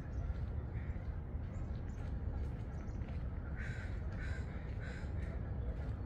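A crow cawing: three harsh caws about half a second apart, two-thirds of the way in, over a steady low rumble.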